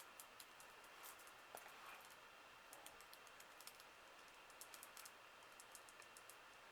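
Near silence: room tone with faint, irregular light clicks and ticks, scattered in small clusters.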